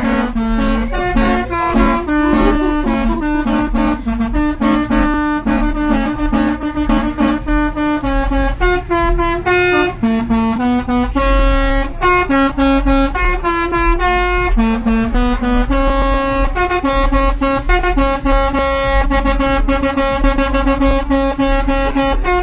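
A bus's multi-tone 'telolet' air horn playing a tune, one note at a time, stepping quickly between a few fixed pitches, over a low engine rumble.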